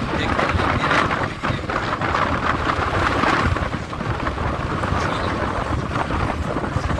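Wind buffeting the microphone: a loud, rumbling rush that swells and eases.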